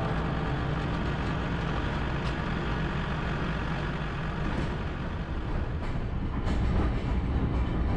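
LS tractor's diesel engine idling steadily, with a few sharp clacks in the second half.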